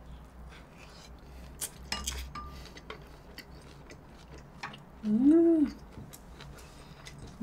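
A person chewing a large sushi roll with closed lips, making soft scattered mouth clicks. About five seconds in comes one short hummed "mmm" that rises and falls in pitch.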